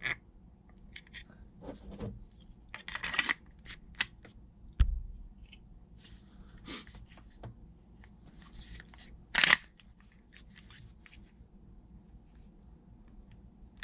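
Hard plastic parts of a 3D-printed folding airsoft pistol lower being handled: scattered scrapes and clicks as a back strap is fitted and the frame worked, with a heavier click about five seconds in and a louder sharp snap near ten seconds.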